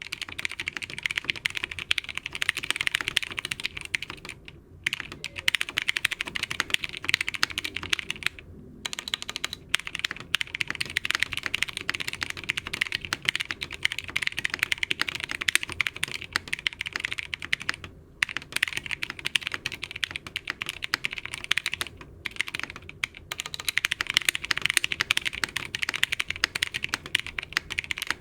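Fast typing on an Abkoncore AR87 mechanical keyboard with lubed Zealios V2 tactile switches and doubleshot PBT Cherry-profile keycaps: a dense run of keystrokes broken by short pauses about 5, 8½, 18 and 22 seconds in.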